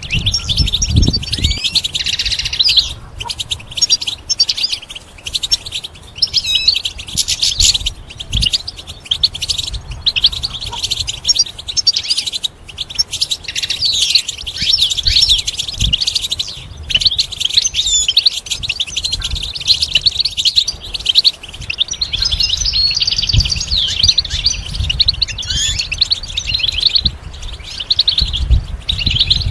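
European goldfinch singing: a long, rapid, nearly unbroken run of high twittering notes and trills with only brief pauses, and occasional low thumps underneath.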